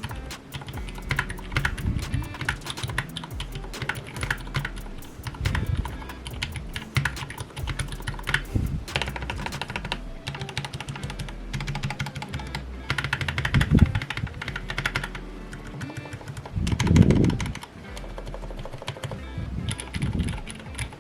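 Typing on a custom keyboard with Silent Sakurio linear switches (62 g, lubed and filmed) on a brass plate in an aluminium case, with thick PBT keycaps. A quick, irregular run of keystrokes goes on throughout, with a few louder, deeper thuds.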